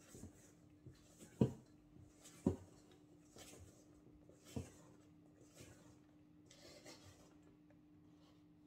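Silicone spatula folding cocoa and flour into whipped eggs and sugar in a stainless steel bowl: soft scraping and swishing strokes, with a few sharp knocks of the spatula against the bowl, the loudest about one and a half and two and a half seconds in. A faint steady hum runs underneath.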